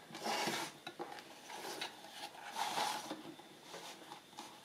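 Masterboard card being handled and slid into place on a paper trimmer: a few light rustles and scrapes with small plastic clicks.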